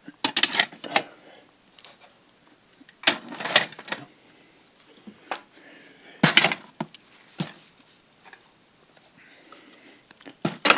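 Clattering and knocking of hard objects being handled and put away, in a few short bursts: one near the start, one about three seconds in, one about six seconds in, then single knocks.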